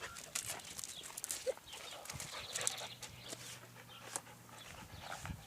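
Pet dog moving about, with light scattered clicks and taps.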